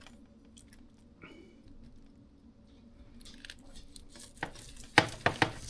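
Knife cutting through smoked corned beef, quiet slicing that ends in a few sharp knocks on the cutting board near the end; the soft cut is the sign of tender meat.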